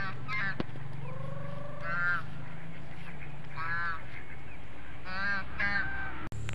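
A flock of domestic ducks calling: about six loud, harsh quacks a second or two apart, some in quick pairs, over a steady low hum.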